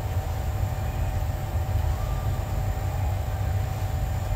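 Commercial kitchen ventilation running: a steady low rumble with a faint constant whine over it.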